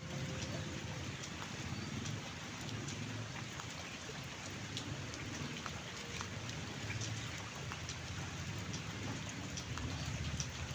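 Steady rain falling, a continuous hiss with many individual drops ticking, over a steady low rumble.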